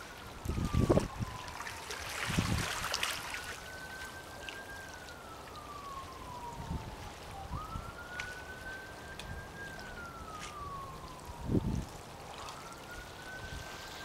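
Siren wailing, its pitch slowly rising and falling about once every five seconds. Wind buffets the microphone a few times.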